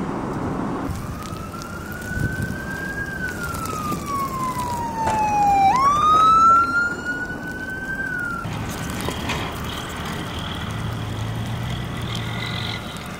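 Emergency vehicle siren in a slow wail: the pitch rises, sinks slowly over a few seconds, then jumps and climbs again before cutting off about eight seconds in. Wind rumbles on the microphone for the first second.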